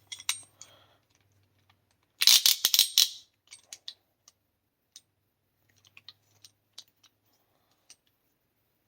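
Small metal tools and copper fittings clattering as they are handled: a few clicks, a loud burst of rattling about two seconds in, then scattered light clicks.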